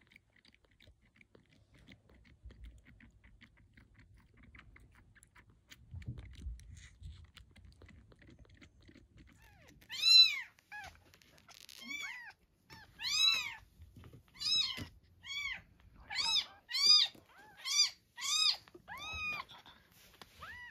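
A very young kitten suckles faintly at a milk bottle for about ten seconds. It then mews loudly and high-pitched, about a dozen times, roughly one call a second, each call rising then falling in pitch.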